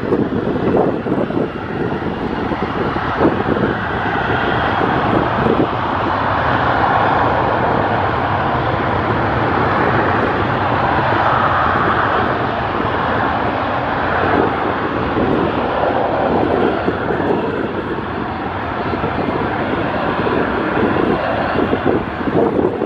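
Boeing 727-200 freighter's three tail-mounted Pratt & Whitney JT8D turbofans at takeoff power during the takeoff roll, a loud, rough, steady jet noise.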